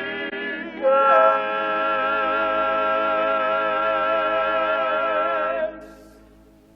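Voices singing a long held final note with slight vibrato, cutting off about five and a half seconds in; a faint organ carries on after.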